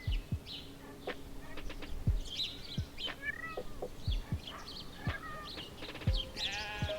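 A pony whinnying near the end, a quavering call. Birds chirp throughout, over background music with a soft beat about once a second.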